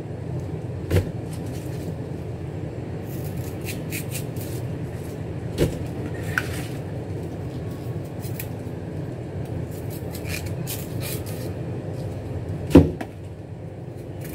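A knife splitting crisp bok choy stems held in the hand: scattered small snaps and crackles over a steady low hum, with one louder knock near the end.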